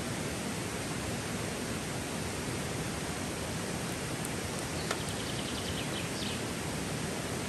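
Steady rushing of a nearby forest stream. About five seconds in, a short, fast, high twittering call.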